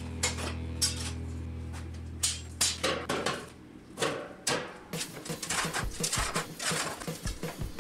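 Steel strips and metal pieces clanking and clattering as they are handled in a workshop, with a series of sharp metallic knocks. A machine's steady hum sits under the first half and fades out about halfway through.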